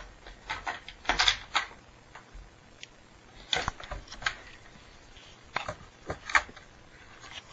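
Plastic milk crate knocking and scraping on the floor as dogs work at it to get bones out from under it, in three bunches of sharp clatters.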